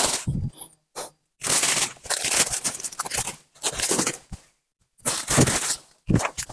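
Irregular bursts of rustling and crunching from plants and dry leaf litter being handled and trodden, broken by short pauses.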